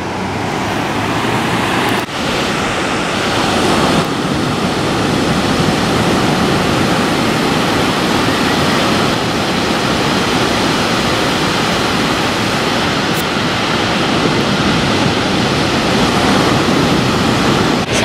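Ocean surf breaking and washing up a sandy beach: a steady, loud rushing wash of noise.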